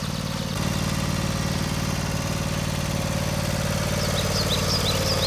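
John Deere riding lawn tractor's engine running steadily, getting slightly louder about half a second in.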